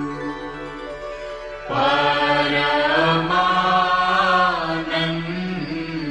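Devotional Hindu chant in praise of the guru, sung over a steady drone. A voice enters about a second and a half in and holds long notes.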